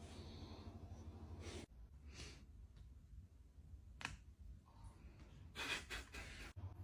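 Faint breathy sighs, with one sharp click about four seconds in, over a low steady hum.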